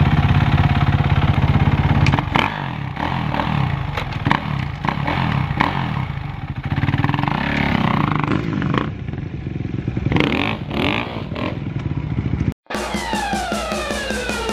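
Dirt bike engine idling, then revved unevenly as the bike pulls away and moves off. About thirteen seconds in the engine sound cuts off and music begins.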